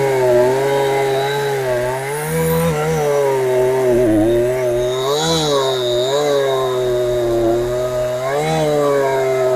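Two-stroke engine of a Husqvarna 372XP clone chainsaw, fitted with a genuine carburettor, running steadily at moderate speed, its pitch wavering with a few brief rises about four, five and eight and a half seconds in.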